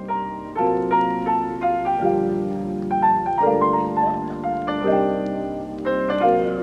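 Background music: a slow piano piece, a melody played over held chords.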